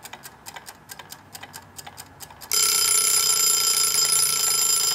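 Chicken-shaped wind-up kitchen timer ticking quickly and evenly, then its bell starting to ring continuously about halfway through as the dial reaches zero: the timer going off to signal time is up.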